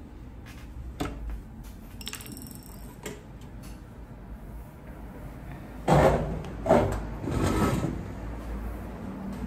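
Handling noises: scattered light clicks and knocks, then a few louder scraping, rustling noises about six to eight seconds in.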